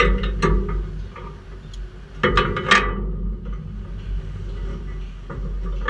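Steel construction site noise: sharp metal clanks and knocks, most of them in the first three seconds, over a steady low machinery hum.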